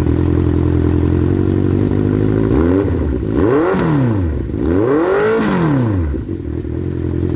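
Honda CB650R's inline-four engine through an SC Project full-system exhaust, idling in neutral and then revved twice. Each rev climbs and drops back over about a second and a half before it settles back to idle.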